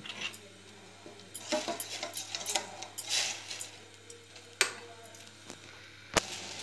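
A metal spoon stirring and scraping tamarind pulp in a steel pan, with scattered clinks and scrapes, then one sharp click near the end.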